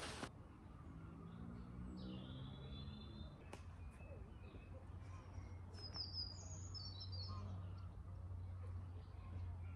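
Faint high bird chirps, a few short calls about two seconds in and again around six to seven seconds, over a steady low rumble.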